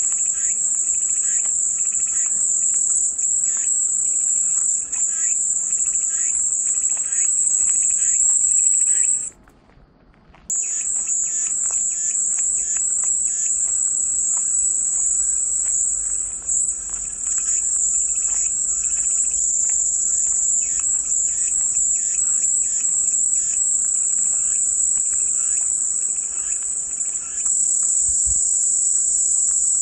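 Cicadas droning in a steady, high-pitched chorus, with softer scattered chirping beneath. The whole sound drops out for about a second about a third of the way in, then resumes.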